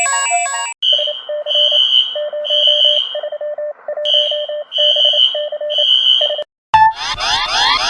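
Electronic emergency-alert attention tones. A short melodic tone pattern ends just under a second in and gives way to a pulsing beep alarm: high beeps about twice a second over fast low pips. After a brief break about six and a half seconds in, a different signal of rapidly repeated rising sweeps begins.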